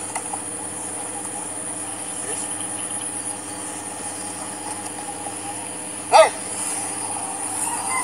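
A bird calls once, loudly, about six seconds in: a quick run of down-curving notes. Behind it runs a steady high-pitched hum like insects.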